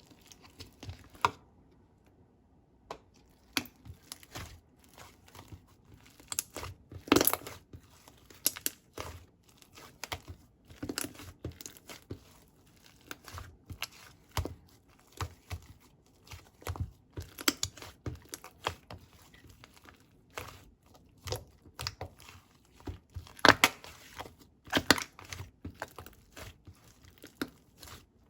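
Thin crinkly material being handled and torn by hand, in many irregular short crinkles and tears. The strongest come about seven seconds in and again around twenty-three to twenty-five seconds in.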